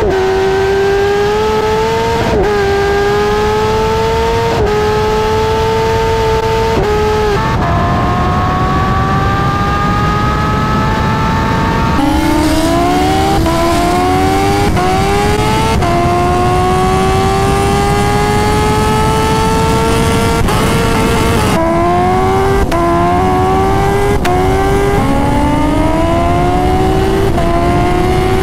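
Kawasaki Ninja H2's supercharged inline-four under full-throttle acceleration, rising steadily in pitch through each gear and dropping sharply at each quick upshift, over heavy wind rush. Several separate pulls are spliced together: long climbs in the high gears, and a fast run of one upshift after another about halfway through and again near the end.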